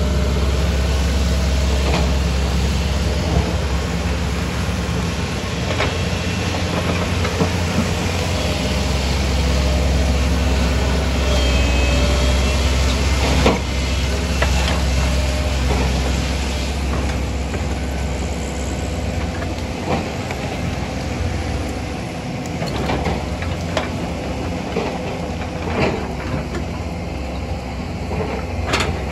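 Kobelco SK140HD hydraulic excavator's diesel engine running steadily under working load, with scattered sharp knocks and clanks as it works the rocky soil.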